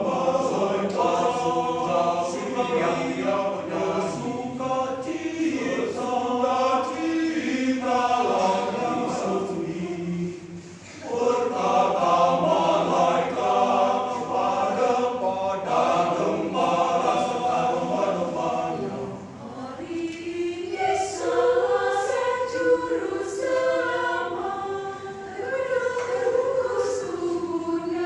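Mixed church choir of men and women singing together, with a brief drop in the sound about ten seconds in between phrases.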